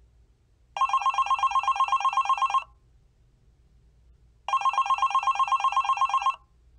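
Telephone ringing twice, each ring a rapid trill about two seconds long, with a pause of about two seconds between rings.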